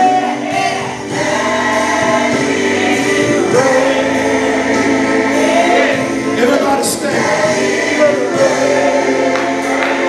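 Gospel choir singing, with voices holding and gliding through phrases over a steady accompaniment.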